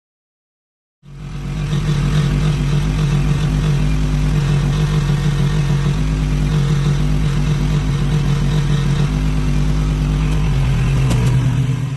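An engine running steadily at a fairly constant speed, with a strong low hum; it starts abruptly about a second in and cuts off abruptly at the end.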